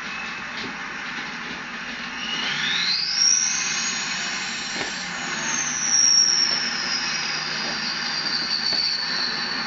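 Turbo whistle from a straight-piped 2006 Ford F-250's 6.0 Power Stroke V8 turbodiesel with a Powermax turbo, over the engine's running noise. About two seconds in, the whistle rises steeply in pitch as the turbo spools up, peaks, then falls slowly as it winds down.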